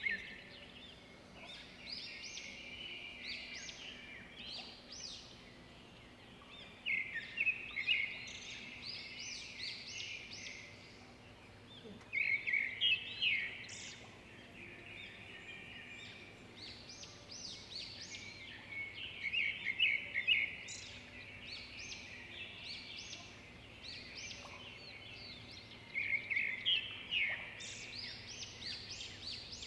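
Birds chirping: bursts of rapid, high, repeated chirps every five to seven seconds, with lighter twittering in between.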